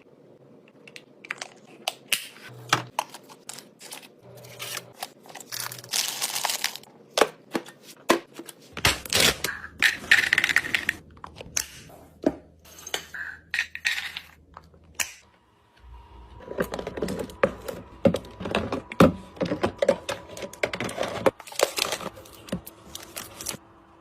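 Packaging crinkling and tearing, mixed with many small clicks and knocks as drinks and snacks are handled and set into a mini fridge.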